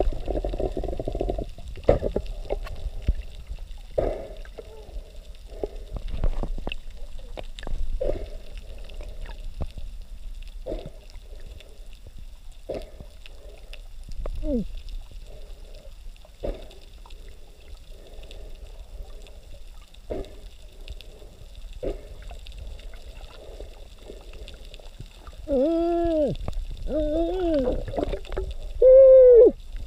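Underwater sound heard by a submerged camera: muffled gurgling and bubbling with scattered short knocks. Near the end come a few loud, arching calls that rise and fall in pitch.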